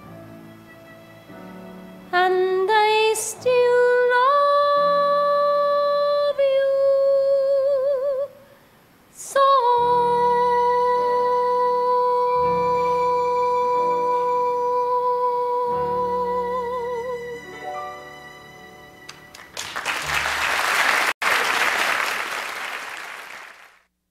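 A woman's voice sings the closing phrase of a theatre song with orchestra: a rising run into a held note, then a long sustained note that ends in vibrato, over low sustained orchestral chords. Near the end, audience applause breaks out and then cuts off abruptly.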